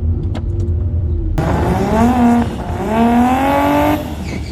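Drag car engine revving hard through a launch: the pitch climbs, drops at a gear change about a second later, climbs again, then cuts off near the end, over a low idle rumble at the start.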